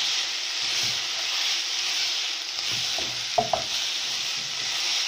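Minced beef sizzling steadily as it fries in a pot while being stirred with a wooden spoon. Two sharp knocks of the spoon against the pot come about three and a half seconds in.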